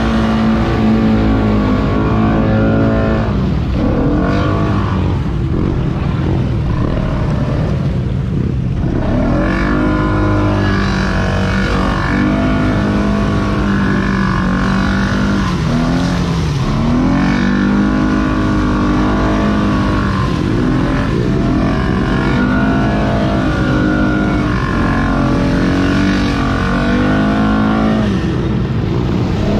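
ATV engine being ridden hard, revving up, holding and easing off again and again, with a steady rush of noise underneath.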